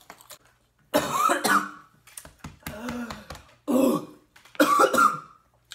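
A man coughing and clearing his throat in several loud separate bursts, a reaction to the burn of eating ghost pepper chips.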